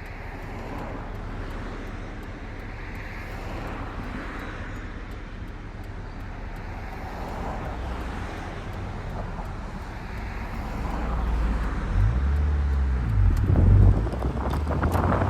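1990 Mazda Miata's 1.6-litre four-cylinder running on the move, with steady road and wind noise. In the last few seconds it grows louder and wind buffets the microphone.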